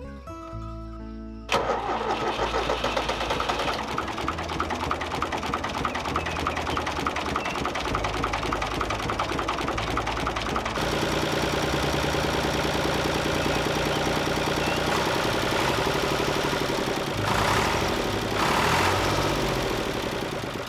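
Diesel engine of a 1982 Fiat 480-8 tractor, a three-cylinder, starting suddenly about a second and a half in and then running steadily, with two brief louder swells near the end. Its fuel system has just been bled after a fuel filter change.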